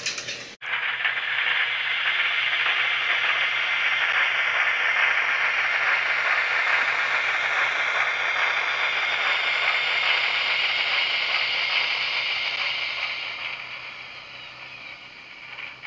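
HOm-scale model railcar running along the track close by: a steady mechanical running noise of its motor and wheels on the rails. The noise fades near the end as the railcar slows to a stop.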